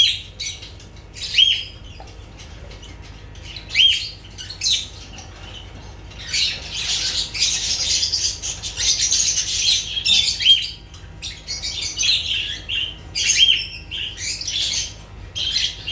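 Lovebirds chirping and screeching in short, shrill calls, with a stretch of dense overlapping chatter in the middle and single arched chirps now and then.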